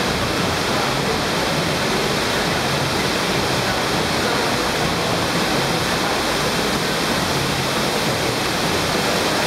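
Steady, even rush of water from an indoor sheet-wave surf simulator: a thin sheet of pumped water racing up the padded ride surface under a flowboarder.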